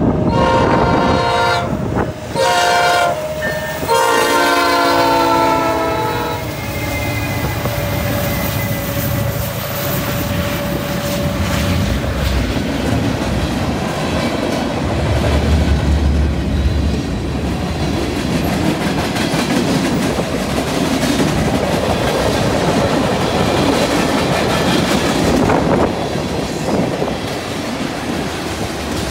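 Freight locomotive air horn sounding three blasts for the grade crossing over the first six seconds, the last one longest. After that, a freight train of hoppers and tank cars passes close by, its wheels rumbling and clattering steadily over the rails.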